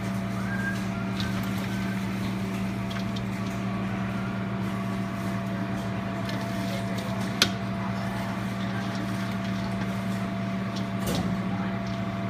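Steady low machine hum of commercial kitchen equipment, with one sharp click about seven seconds in and a lighter knock near the end as the slaw and a stainless steel bowl are handled.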